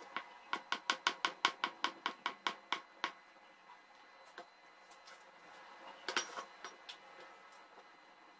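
Cleaver chopping meatloaf strips into small cubes on a plastic cutting board: a quick, even run of about fifteen chops over the first three seconds, then a short cluster of knocks about six seconds in.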